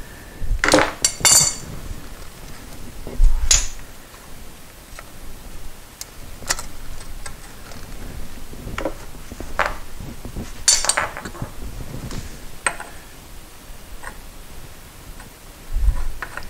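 Irregular metal clinks and knocks of hand tools and steel motorcycle fork parts being handled and fitted, a second or more apart, with a couple of duller low knocks among them.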